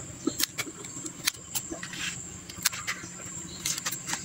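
Small scissors snipping through the leaf stalks of mustard greens: about five sharp clicks, spaced irregularly, with a soft leaf rustle near the middle.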